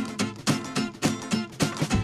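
Background music: a strummed guitar with regular strokes over a steady beat.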